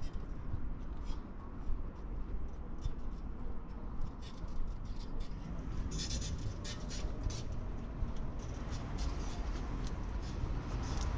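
Footsteps on cobblestone paving at a steady walking pace, about two to three crisp scuffs a second, over a steady low rumble of city or wind background.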